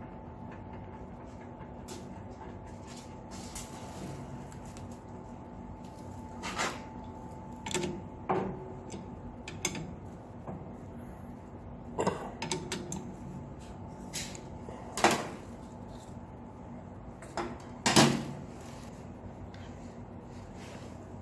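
Irregular knocks and clunks of hard parts being handled and set down, the two loudest near the end, over a steady low hum.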